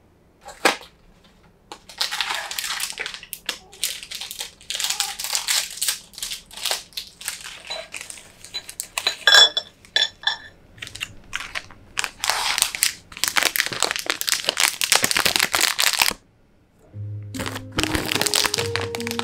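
Plastic snack packaging crinkling in repeated bursts as Toppo pretzel sticks are pulled from their inner packet onto a plate. The crinkling stops suddenly near the end and music comes in.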